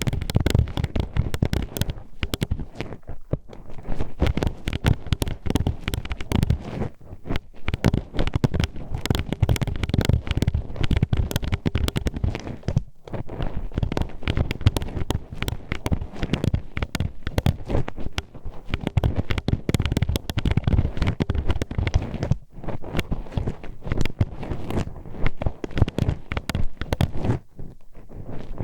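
Metal hairpins poked and scraped inside a binaural microphone's ear: a dense run of rapid clacking and clicking with deep thuds, stopping briefly a few times.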